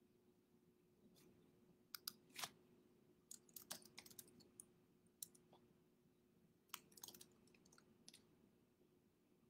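Near silence with faint, irregular clicks and taps of typing on a computer keyboard, in small clusters, over a faint steady hum.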